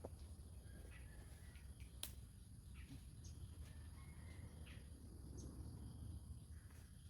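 Faint rural outdoor ambience: scattered short bird chirps over a steady high insect drone and a low rumble, with one sharp click about two seconds in.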